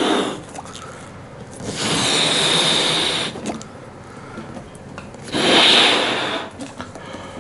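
A toy balloon being blown up by mouth: two long puffs of air, each about a second and a half, with pauses between.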